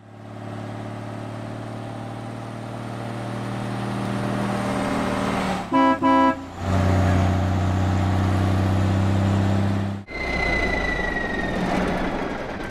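Sound effect of a truck engine running steadily, getting louder, with two short horn toots about six seconds in. About ten seconds in the engine sound changes to a rougher rumble with a slowly falling whistle.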